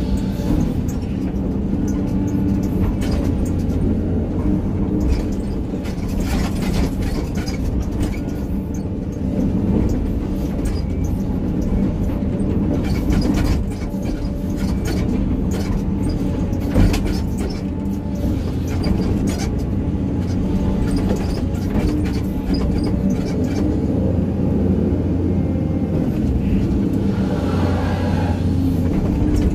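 Hydraulic excavator's diesel engine running steadily under working load, heard from the operator's cab, with scattered clicks and knocks from the machine through it.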